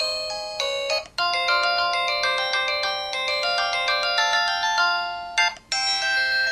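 Built-in ringtone melodies of an LG-SD860 mobile phone playing: a bright, chiming synthesized tune of quick, high notes with no bass. The tune breaks off briefly about a second in and again near the end.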